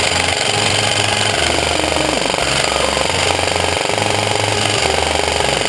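Rapid, steady rattle of full-auto airsoft electric rifle fire, under electronic dance music with a heavy stepping bass line.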